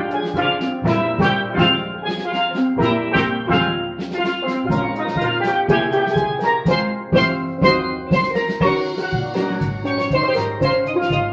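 A steel pan ensemble playing a tune, several pans struck with mallets in quick ringing notes with low notes underneath.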